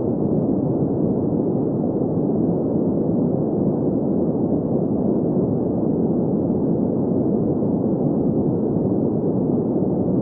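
Steady green noise: an even, unchanging hiss centred in the middle-low range, with little energy above about 2 kHz.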